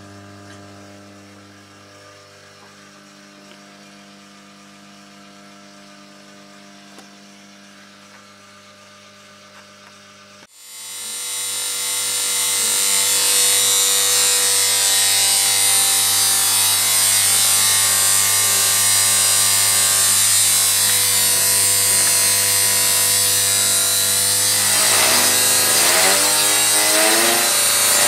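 Variable transformer humming steadily at first; about ten seconds in, an electric motor-driven load fed from it starts up and runs with a loud, steady whir. Near the end its pitch rises as the voltage is turned up on the variac.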